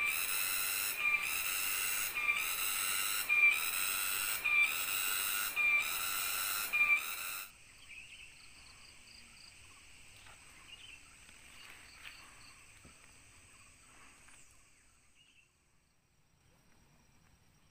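Tropical cicada chorus: a loud, shrill, pulsing whine that beats about every half second over the steady rush of a forest stream. About seven and a half seconds in it cuts off sharply, leaving only faint, thin insect sound that fades almost to nothing near the end.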